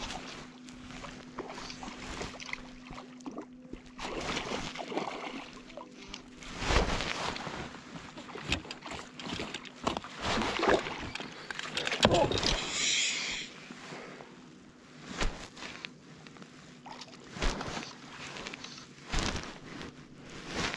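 Water lapping and sloshing against a float tube, with close-up knocks, thumps and rustles from handling the fly rod, line and clothing. The two loudest knocks come about seven and twelve seconds in, followed by a brief hiss.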